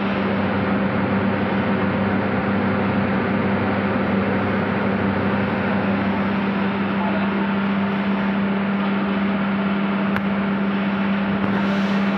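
Variable frequency drive running: a steady electrical hum with one strong low tone and fainter higher tones, over an even whirring hiss.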